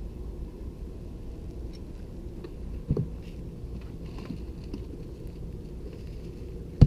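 Campfire crackling faintly over a steady low rumble, with two sharp knocks, one about three seconds in and a louder one near the end.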